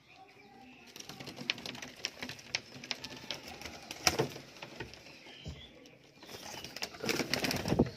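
Teddy pigeons cooing in a loft, with many small scattered clicks and scuffs. A louder stretch of rustling noise comes near the end.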